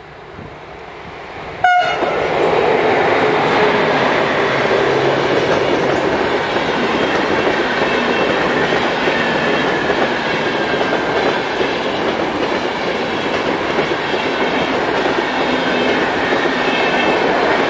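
SŽ class 342 electric locomotive hauling RegioJet passenger coaches past at speed. A short horn blast sounds about two seconds in. After that comes the steady loud rolling and clatter of the coaches' wheels over the rails.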